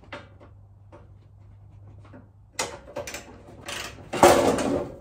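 Wrench work on a rusted-in bolt holding a Subaru Sambar's sheet-metal exhaust manifold heat shield: a few faint clicks, then from about halfway a run of loud, harsh metal scrapes and rattles, the loudest near the end.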